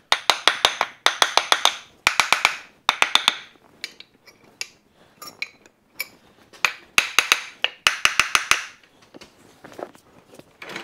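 Hammer blows driving wooden wagon-wheel spokes down into a cast-iron hub so they bottom out in their sockets. The blows come in quick runs of several light blows, about eight a second, each run ringing, with a pause in the middle.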